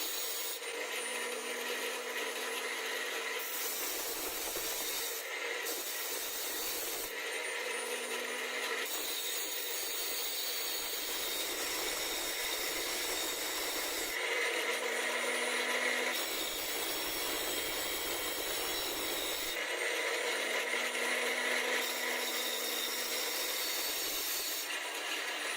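Continuous rough rubbing and scraping of wood-working, like sanding or filing, going on in stretches whose character changes every few seconds; some stretches carry a faint steady hum.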